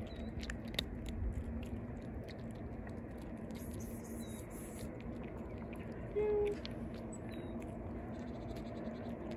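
Stray cats crunching and chewing dry kibble, with small scattered clicks over a steady low background hum. A short steady-pitched sound about six seconds in is the loudest moment.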